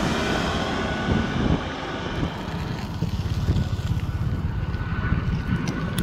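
Jet airliner coming in to land, its engine noise dying away as it moves off: the high whine fades and a low rumble is left, with wind buffeting the microphone.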